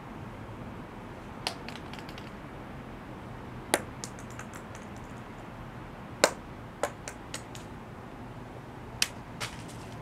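Acorns dropping onto stone paving: a scattered, irregular series of sharp clicks, several followed by one or two quicker, smaller bounces, over a steady low background hum.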